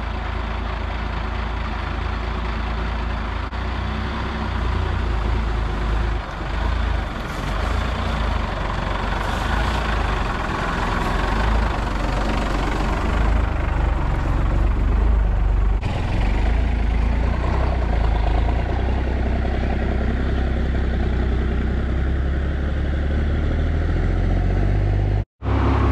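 First-generation Dodge pickup's 12-valve Cummins 5.9-litre inline-six turbo diesel running steadily as the truck creeps over dirt mounds and holes. The sound cuts out for an instant near the end.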